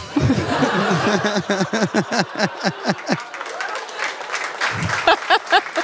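Live audience laughing and clapping. A loud run of laughter fills about the first three seconds, then clapping carries on with scattered voices near the end.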